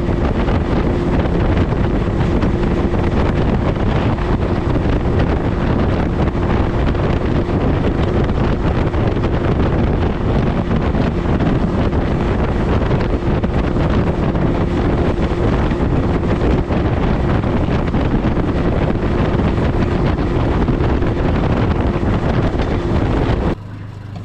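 Boat running at speed on its Yamaha 75 outboard: wind buffets the microphone over a steady engine drone and water noise. The sound cuts off sharply near the end.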